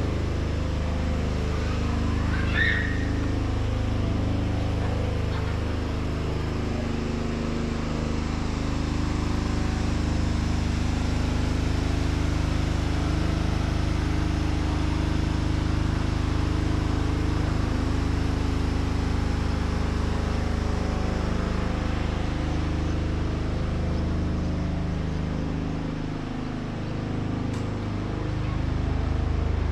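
Steady low rumble of motor-vehicle engine and traffic noise, with a brief high chirp about two and a half seconds in.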